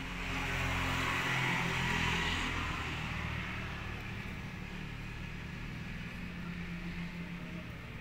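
A motor vehicle passing, its rushing noise swelling over the first second and fading by about three seconds in, over a steady low engine hum.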